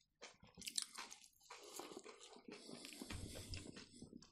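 Quiet close-up eating sounds as two people chew fried potato pies and a zucchini appetizer. A few separate small clicks come first, then steadier chewing from about a second and a half in.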